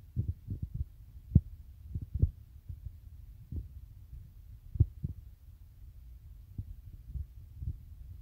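Irregular dull low thumps over a faint low rumble, with a few louder knocks among them: noise on the microphone of a handheld phone.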